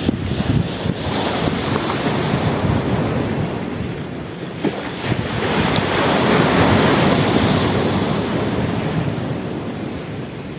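Sea waves surging, with wind buffeting the microphone in low gusts; the wash swells to its loudest a little past the middle and eases off toward the end.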